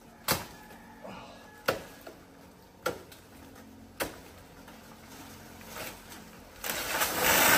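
Four sharp chops of a blade into a banana plant's soft trunk, a little over a second apart. Near the end comes a loud, sudden rush and crash of leaves as the cut banana plant falls.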